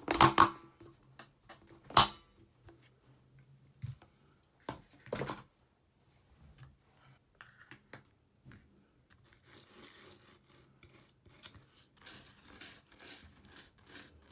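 A few sharp knocks and clicks as an iPhone 5 logic board is handled and set down on cardboard, then from about nine seconds in, a brush scrubbing the board with isopropyl alcohol in quick scratchy strokes.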